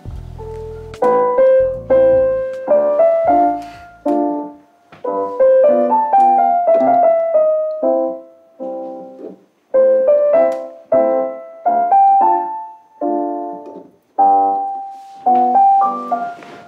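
Piano tune played on a Roland digital keyboard: chords and melody notes struck one after another, each fading away, in short phrases with brief pauses between them.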